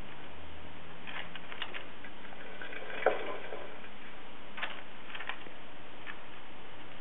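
Hamster climbing in its cage: scattered light clicks and taps of its claws on the cage, with one sharper knock about three seconds in, over a steady hiss.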